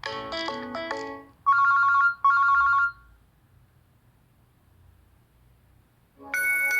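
Nokia 3 stock ringtones playing. A melodic electronic tune ends about a second and a half in. Two loud, short two-tone electronic rings follow, then a pause, and a new bright chime-like ringtone starts near the end.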